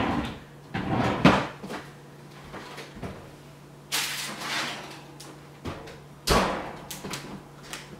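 A kitchen oven door being opened and a baking tray slid out, with knocks along the way, then the oven door shutting with a thump about six seconds in.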